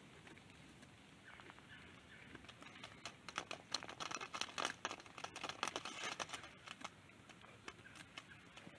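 Sheep scraping at a sapling's bark with its head, a dense run of quick scratchy clicks starting about three seconds in and lasting some three seconds, faint overall.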